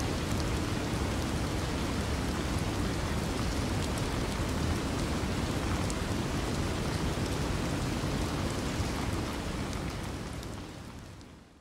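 Steady rain-like noise with faint scattered droplet ticks, fading out near the end.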